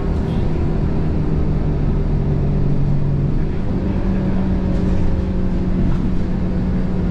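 City bus engine running, heard from inside the passenger cabin: a steady low rumble with a hum that steps up in pitch about halfway through as the bus pulls along.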